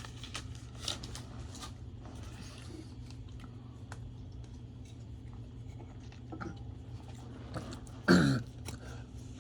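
Faint clicks and rustles of trading cards being handled over a steady low electrical hum, then a short, loud throat-clearing about eight seconds in.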